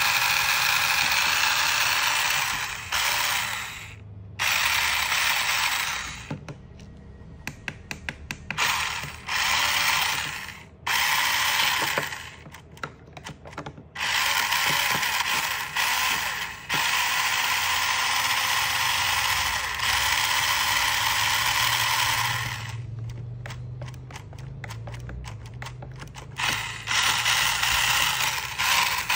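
Small electric motor and plastic gears of a toy RC drift car whirring as its wheels spin freely in the air, in runs of one to six seconds with short pauses, and light clicking in the pauses.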